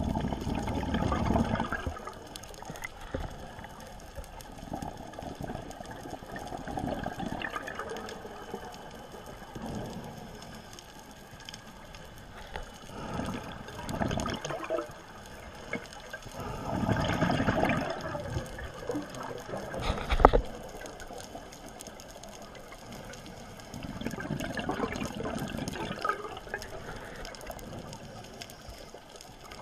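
Underwater sound on a scuba dive: muffled water noise that swells every few seconds with bubbling, and one sharp click about twenty seconds in.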